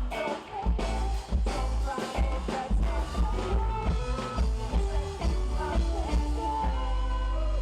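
Background music with a steady beat and heavy bass, settling into a held bass drone near the end.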